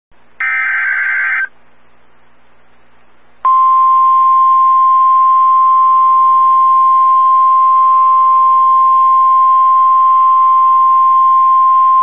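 NOAA Weather Radio emergency alert: a harsh one-second burst of SAME digital header data, then after a two-second gap the steady single-pitch warning alarm tone, held for about nine seconds. The alarm tone signals that a warning message follows, here a severe thunderstorm warning.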